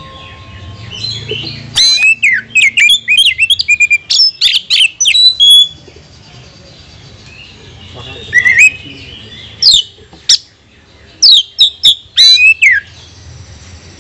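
Oriental magpie-robin singing: loud, rapid runs of sharp whistled and harsh notes. A dense outburst comes from about two to six seconds in, followed by shorter phrases separated by pauses.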